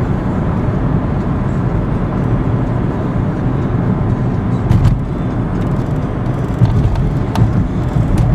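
Steady engine and road rumble heard from inside the cabin of a 1994 Ford Escort with its 1.9-litre four-cylinder engine, cruising along, with a couple of short clicks partway through.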